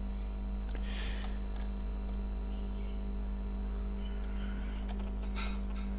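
Steady electrical mains hum on the recording, with two faint brief soft noises about a second in and near the end.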